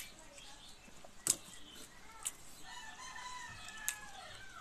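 A rooster crowing once, about three seconds in: one long call that falls in pitch as it ends. Four sharp clicks come through it, the loudest sounds here.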